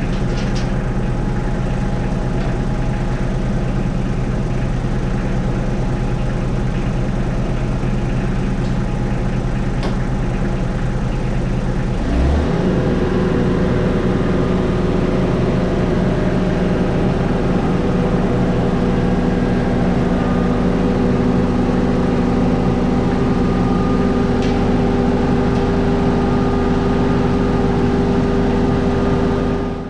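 Kubota KX91-2 mini excavator's diesel engine idling, then throttled up about twelve seconds in to a higher steady engine speed.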